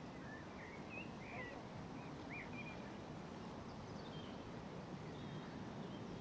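Small birds chirping: several short notes that swoop up and down in the first couple of seconds, then a few fainter, higher chirps later, over steady background noise.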